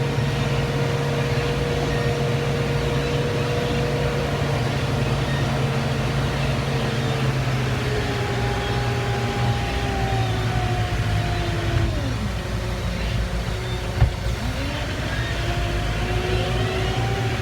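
Tractor engine running steadily with a whining tone that falls away about twelve seconds in and rises again a couple of seconds later. A single click comes about fourteen seconds in.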